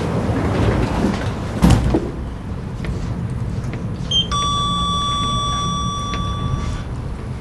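Elevator car running with a low steady hum and a thump about two seconds in, then its electronic chime: a short high beep and a steady tone held for about two and a half seconds, the signal of arrival at a floor.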